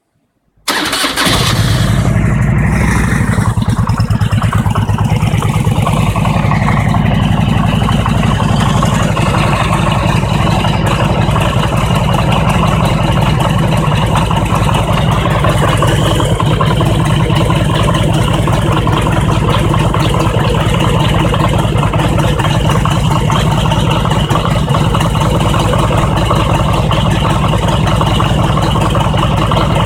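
Harley-Davidson V-twin engine started cold: it fires about half a second in and then runs steadily at idle, with the knock that shows up while the engine is cold.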